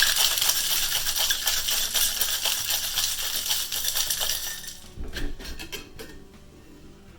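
Ice rattling in a cocktail shaker being shaken hard, stopping about four and a half seconds in, followed by a few knocks.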